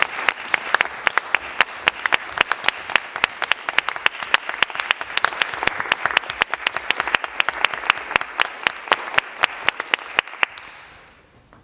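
Audience applauding, with many sharp individual claps standing out close by. The applause dies away about ten and a half seconds in.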